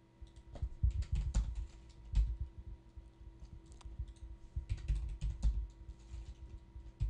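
Typing on a computer keyboard: irregular keystrokes and clicks, some in quick runs, with a dull thud under each stroke.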